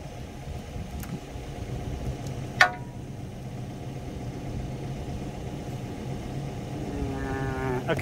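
A single sharp metal-on-metal clang with a brief ring about two and a half seconds in, from work on the quick coupler's steel parts, over a steady low engine-like hum.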